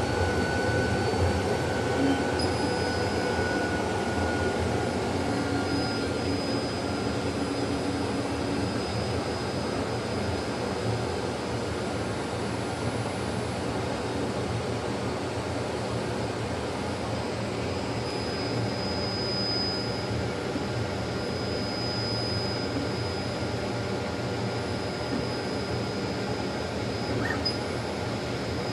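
Laser printer running: a steady mechanical whir from its motors and fan, with a faint high-pitched whine on top.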